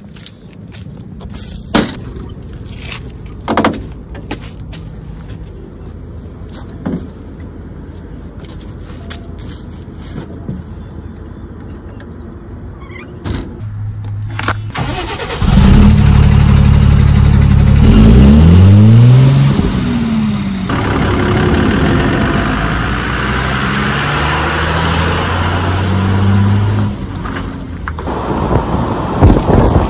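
Tata truck's diesel engine starting about halfway through, with scattered clicks and knocks before it. It revs with a rising pitch, then settles into a steady run.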